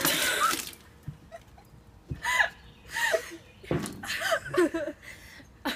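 Liquid flung out of a metal mixing bowl, a short burst of splashing in the first second. Girls then laugh and exclaim, with a couple of dull thumps about two and four seconds in.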